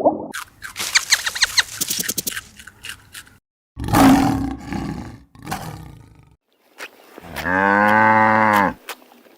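A string of different animal calls, cut one after another. First comes a quick, high chattering. About four seconds in there is a loud, rough call, and near the end a long, low call that rises and falls in pitch.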